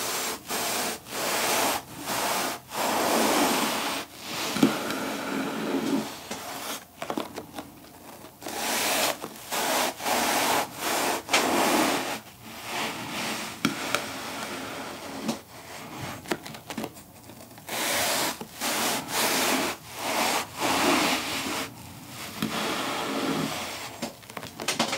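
Kitchen knife sawing through a roll of compressed cotton candy on a wooden cutting board: runs of back-and-forth cutting strokes, each run lasting one to three seconds, with short pauses between slices.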